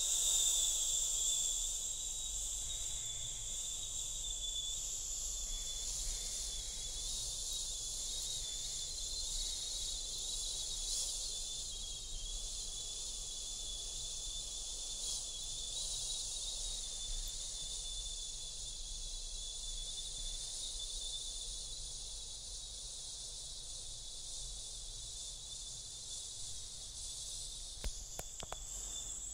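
A long, steady hiss of breath blown out through pursed lips, like air slowly leaving a punctured tyre. It is one slow, controlled exhalation drawn out for almost half a minute, fading gradually, with a few faint clicks near the end.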